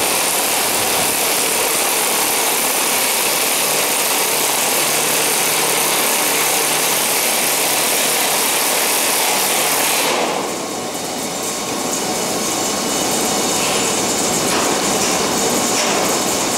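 Loud steady rush of grain unloading from a hopper wagon into the pit, which cuts out suddenly about ten seconds in and leaves a quieter steady hum. A cordless power tool driving the hopper door mechanism runs under it.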